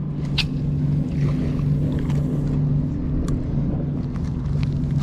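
Small boat motor running steadily with a low, even hum. A couple of brief sharp ticks come through over it.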